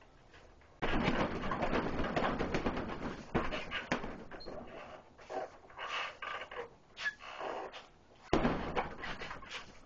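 Heavy punching bag being hit in flurries of punches. A dense spell of hits starts suddenly about a second in, shorter bursts follow, and another sudden spell comes near the end.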